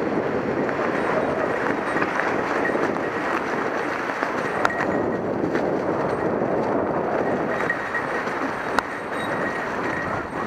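Mountain bike rolling over a rough trail: a continuous rumble and rattle of tyres and frame, with a couple of sharp knocks.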